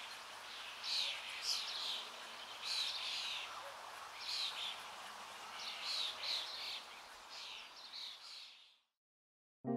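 Birds chirping in short, repeated falling calls about every second, over a steady background hiss; the sound fades out shortly before the end.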